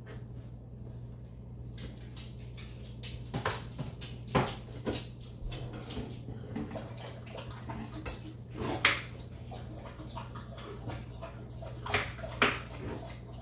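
Chef's knife chopping potatoes on a cutting board: irregular knocks and clatters starting about three seconds in, over a steady low hum.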